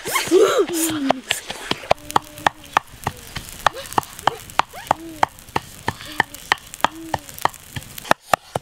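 A brief cry in the first second, then a pestle pounding chilies in a stone mortar: rapid, even knocks at about four a second that stop shortly before the end.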